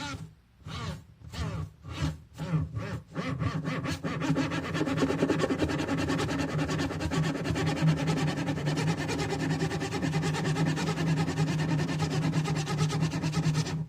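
Harsh, rasping buzz from a homemade pencil-lead and phone noise-maker. It comes first in short uneven bursts with wavering pitch, then from about four seconds in as a continuous drone, and cuts off suddenly near the end.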